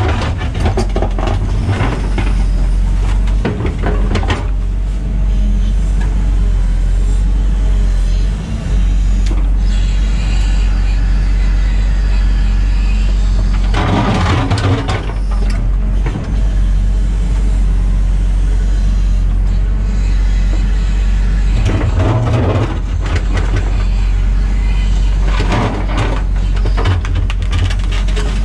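Diesel engine of a construction machine running steadily, with louder surges now and then.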